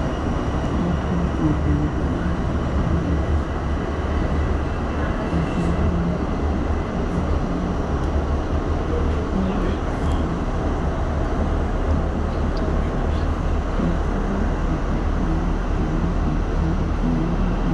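New York City subway train running at speed, heard from inside the car: a steady rumble with a faint steady whine above it.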